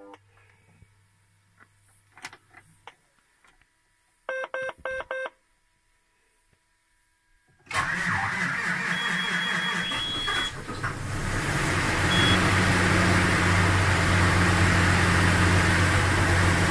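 John Deere 7250R diesel engine cold-starting in winter. A short series of four beeps about four seconds in is followed by the starter cranking just before eight seconds. The engine catches after a few seconds and settles into a steady idle near 920 rpm.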